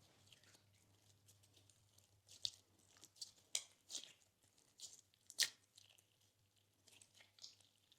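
Slime being squeezed and worked by hand, giving irregular crunchy crackles and sharp pops. They are sparse at first, then thicker and louder through the middle, with the sharpest pop about five and a half seconds in.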